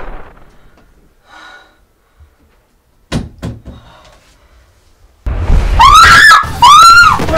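A few sharp knocks about three seconds in, then a woman screaming: loud, high-pitched screams one after another from about five seconds in.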